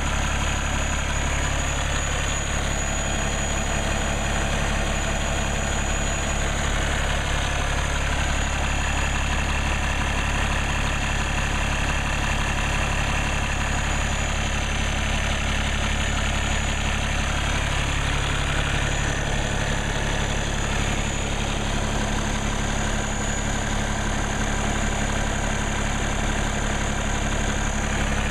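Cummins ISX inline-six diesel engine of a semi truck idling steadily, running normally after a fuel filter replacement.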